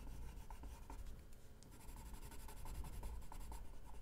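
Blue watercolor pencil scratching faintly across paper as a letter is coloured in.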